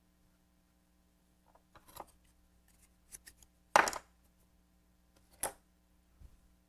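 Small pottery hand tools knocking and clattering on a wooden worktable as one is picked out. There are a few light clicks, then a sharp clack a little under four seconds in and another about a second and a half later.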